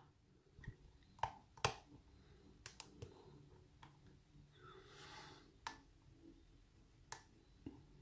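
Light, sharp metallic clicks of a hook pick and tension wrench working the pin stacks of an American 1100 padlock, about ten scattered clicks with the loudest about one and a half seconds in.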